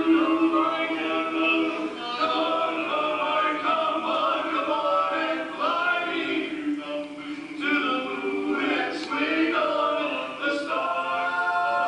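A male barbershop quartet singing a cappella in four-part close harmony.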